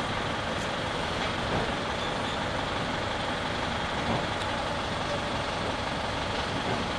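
Steady background rumble and hiss, even throughout, with a few faint clicks.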